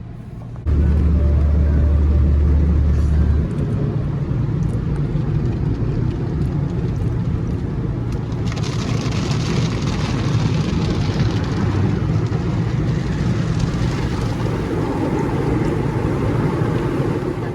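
Automatic car wash working over the car, heard from inside the cabin: a sudden loud rumble, then a steady rush of water spray and machinery, with a hissier spray joining in about halfway through.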